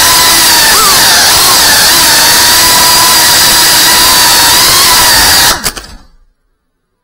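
Brushless motors and propellers of a Geprc Cinelog whoop FPV drone whining steadily in flight, the pitch wavering briefly about a second in. A little over five seconds in there are a couple of sharp knocks and the motor sound stops abruptly.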